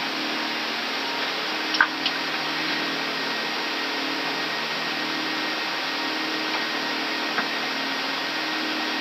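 Steady rushing air and engine noise on the flight deck of an Airbus A380 in its climb after takeoff, with a faint low hum. A couple of short clicks come about two seconds in and one near the end.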